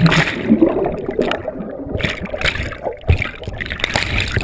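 Underwater swimming-pool sound picked up by a GoPro: muffled swirling water and bubbles from a swimmer moving close to the camera, with irregular knocks and a stronger knock about three seconds in.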